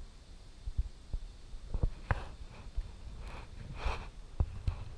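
Handling noise from a GoPro's telescopic pole tucked inside a life jacket while paddling a kayak: a low rumble with a series of soft knocks and a few brief rustling swishes.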